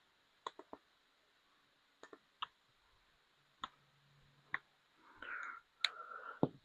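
Faint scattered clicks and taps from handling a bottle of lens clarifying compound while squeezing it onto a headlight lens, with short soft rustles about five and six seconds in.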